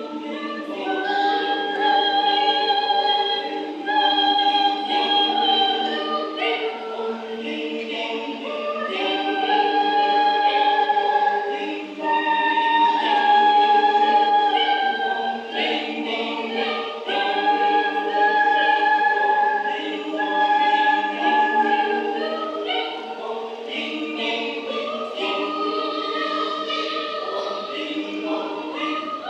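Youth choir singing unaccompanied in several parts, holding chords through phrases of a few seconds with short breaks between them.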